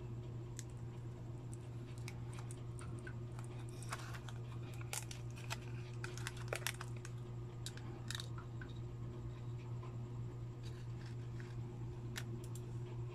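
Scattered small clicks and crackles as the plastic mid-frame and display parts of a Vivo Y91 phone are handled, busiest in the middle and again near the end, over a steady low electrical hum.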